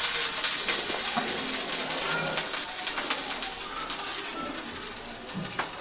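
Chopped onions sizzling in a hot black kadai with the gas flame off, the hiss slowly fading as the pan cools. A few short, faint calls sound in the background.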